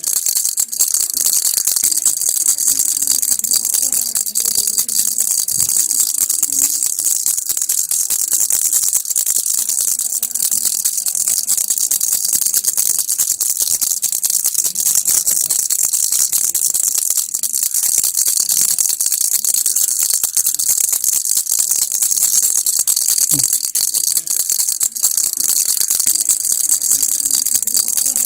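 Baby rattle shaken without pause: a steady, dense, high-pitched clatter of small beads.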